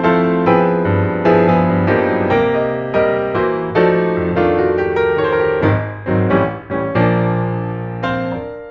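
Solo piano background music, notes struck at an even pace, closing on a held chord that fades away near the end.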